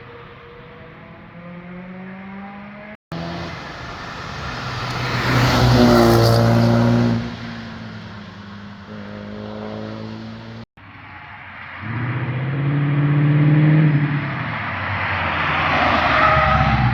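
Cars passing one after another under acceleration, the engine and exhaust note swelling loud as each goes by and then fading. The sound cuts off abruptly twice, about three seconds in and again near eleven seconds, with a new car already running after each cut.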